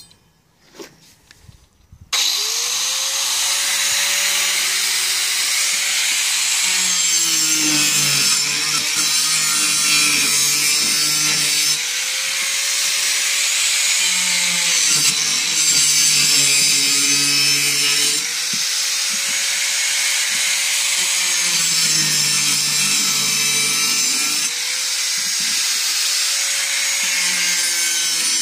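Corded angle grinder starting about two seconds in and cutting into a plastic jerrycan, its motor pitch sagging each time the disc bites into the plastic and picking up again in between, several times over.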